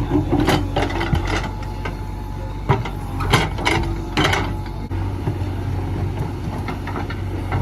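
Diesel engine of a JCB 3DX backhoe loader running steadily, with a series of sharp knocks and clanks in the first half.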